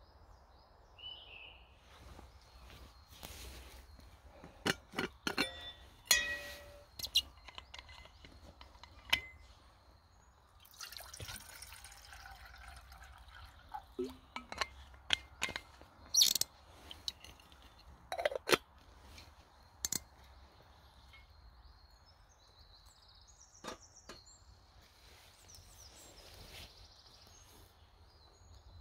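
Irregular clinks and knocks of camp cookware being handled, with short stretches of liquid trickling and pouring, as coffee is made at camp.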